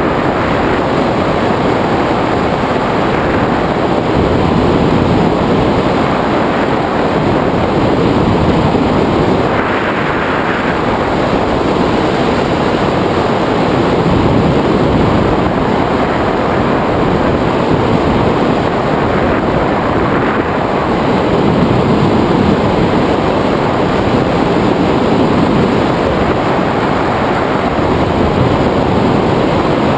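Steady, loud wind rushing over the microphone of a camera mounted on a tandem hang glider in flight.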